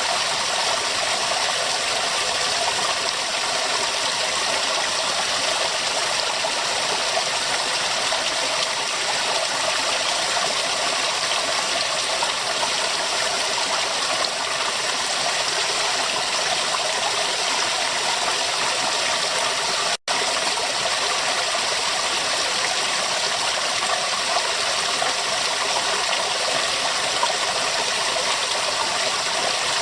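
River water flowing steadily over rocks, an even, continuous rushing. A momentary gap about two-thirds of the way through.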